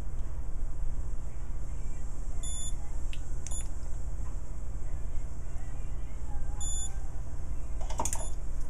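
Cordless LED dental curing light giving short high beeps, twice about four seconds apart, marking the intervals of its curing cycle as it light-cures adhesive on a provisional bridge. A steady low hum runs underneath, and a few clicks come near the end.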